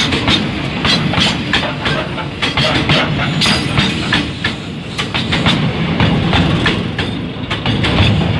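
Railway oil tank wagons rolling past close by, their steel wheels clacking over the rail joints in a quick, uneven run of clicks over a steady rumble.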